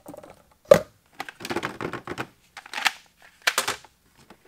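Hard plastic dehydrator trays and a cut plastic mesh grate being handled and set down: a run of clacks and scrapes, with one sharp click just under a second in.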